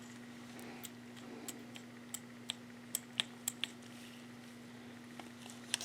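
Light clicks and ticks of small metal parts of a disassembled oil pump being handled, a dozen or so, mostly bunched in the middle, over a steady low hum.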